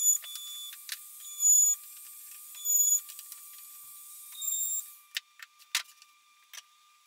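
Compact trim router running while cutting grooves in plywood, with a few short, high-pitched tones in its sound. It stops about five seconds in, followed by a few light clicks and knocks.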